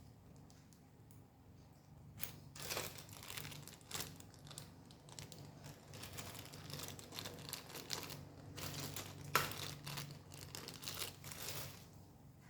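Packaging crinkling as it is handled, in irregular bursts from about two seconds in, with a few sharp clicks.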